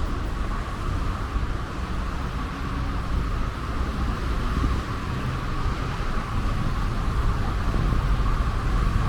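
City street traffic: a steady rumble of vehicles running, with a constant hiss over it.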